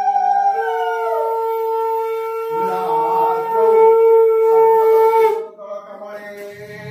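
A conch shell (shankha) blown in long, steady, horn-like notes. A second held note comes in at a lower pitch about half a second in, and the blowing stops about five and a half seconds in.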